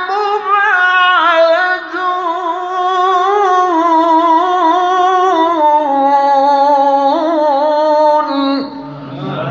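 A male qari reciting the Quran in melodic tajweed style through a microphone, holding one long, ornamented phrase whose pitch wavers and steps up and down. The phrase breaks off near the end and a lower man's voice starts speaking.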